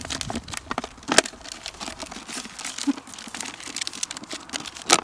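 A shot-through plastic water bottle being turned over and squeezed in the hands, its thin plastic crinkling and crackling irregularly.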